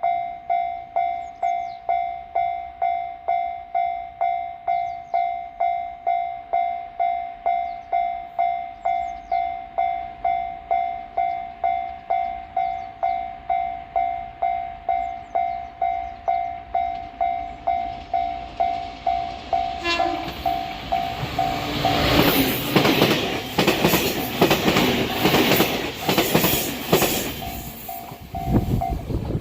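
A Japanese level-crossing warning bell rings steadily, about two strikes a second. About two-thirds of the way in, a six-car JR Kyushu 813 series electric train gives a short horn toot, then passes with its wheels clattering over the rail joints for several seconds. The bell keeps ringing after the train has passed.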